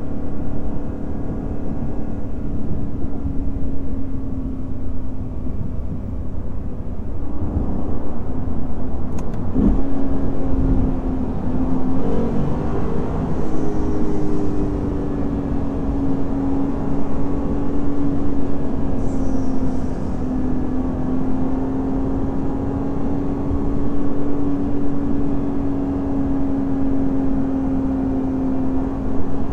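Lexus IS500 F Sport Performance's naturally aspirated 5-litre V8 running at a steady cruise, one constant engine tone over road and tyre noise, shifting slightly in pitch around seven and twelve seconds in.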